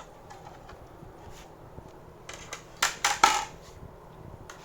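A few sharp clicks and clinks of small hard parts being handled, the loudest cluster about three seconds in.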